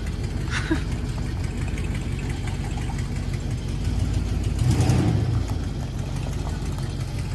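Motorhome engine running steadily at low speed, with a brief louder swell about five seconds in. It is being started and rolled a short way forward and back after sitting parked for weeks.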